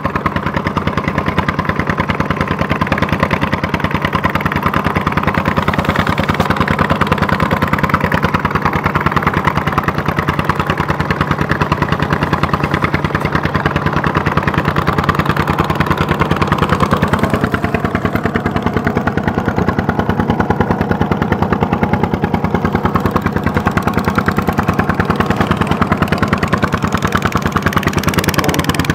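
Fishing boat engine running steadily at constant speed, an even, rapid chugging.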